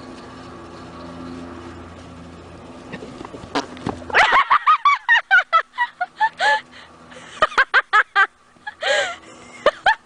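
A horse's low, drawn-out fart for the first three seconds or so, then a loud, rapid run of short pitched calls that rise and fall in clusters through the rest.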